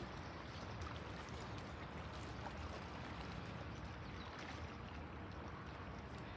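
Faint, steady waterside ambience: small waves lapping against the pilings and bank, with a low wash of wind and a few faint clicks.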